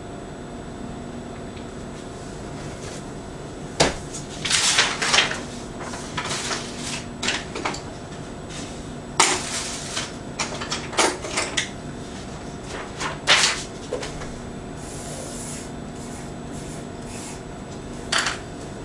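Art supplies being handled at a table: a spiral sketchbook's pages rustling and objects rummaged in a supply box, with scattered knocks and clatters over a faint steady hum.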